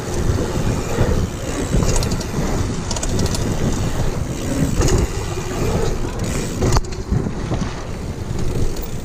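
Wind buffeting a handlebar-mounted action camera and mountain-bike tyres rolling fast over a packed-dirt trail, with rattles and clicks from the bike over bumps and a sharp knock about seven seconds in.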